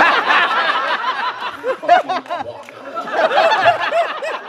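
A large audience laughing together, many voices at once, swelling again about two seconds in and once more near the end.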